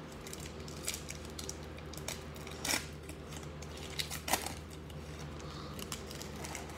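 Foil wrapper of a Panini Chronicles basketball card pack crinkling and tearing as it is ripped open by hand, in a handful of sharp crackles, the loudest about midway. A steady low hum runs underneath.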